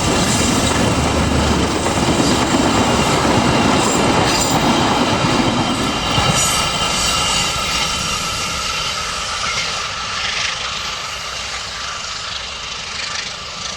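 A train passing close by, its cars rolling over the rails. The noise is loudest for about the first six seconds, then eases off.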